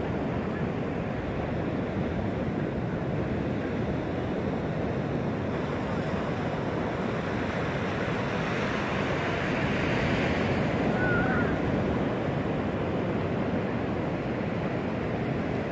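Ocean surf breaking and washing up a sandy beach: a steady rushing wash that swells louder as a wave breaks about two-thirds of the way through.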